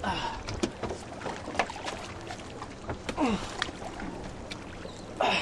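Water splashing and sloshing at a boat's side, with scattered knocks and clicks, as a large snook is lifted out of the water on a lip-grip scale. A louder splash comes at the start and another near the end.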